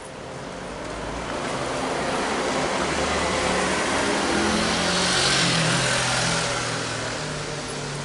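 A car driving past close by, its engine and tyre noise swelling to a peak about five seconds in and then fading away.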